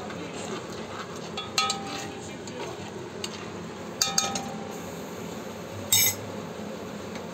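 Metal spoon stirring a thick mushroom cream sauce in a frying pan, scraping and clinking against the pan with a brief ring about one and a half seconds and four seconds in, over a steady low hiss. A short, louder clatter comes about six seconds in.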